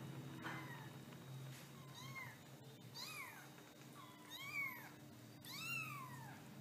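Young colorpoint kittens mewing: about five short, high mews, each rising and then falling in pitch, the last two loudest.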